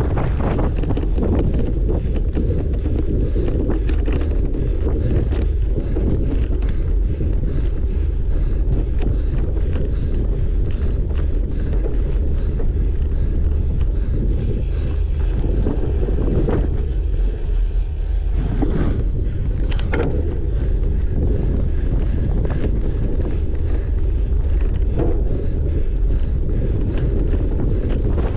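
Heavy wind buffeting the microphone while riding a cyclocross bike, a dense low rumble with scattered clicks and rattles from the bike over rough ground. A fainter high buzz sounds for a few seconds around the middle.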